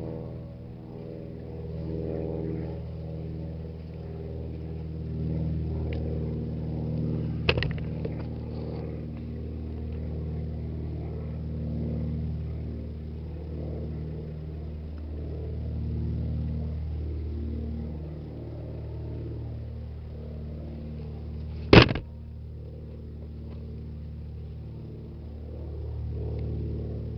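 A steady engine drone made of several low tones, slowly swelling and fading. It is broken by two sharp knocks, a light one about a third of the way in and a louder one near the end.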